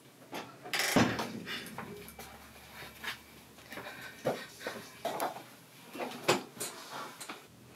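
A door being handled, with a louder knock and rustle about a second in, then scattered light knocks and clatter.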